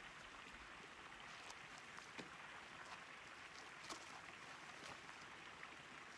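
Near silence: a faint steady outdoor hiss with a few soft cracks and knocks from tamarack logs and brush being handled.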